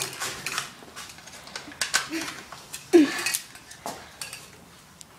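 Hard plastic clicks and clatters from a toy gun being handled and swung: a handful of sharp, irregular clicks, the loudest about three seconds in, together with a short falling vocal sound.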